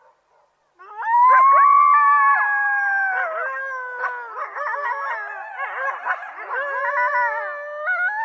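A group of coyotes howling together, starting about a second in with several overlapping long howls, then breaking into quick wavering yips and trills.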